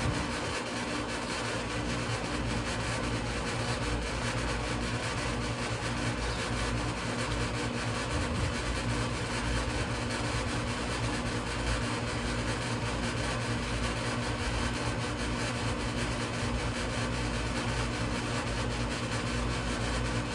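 A steady mechanical hum with an even noise over it, unchanging throughout.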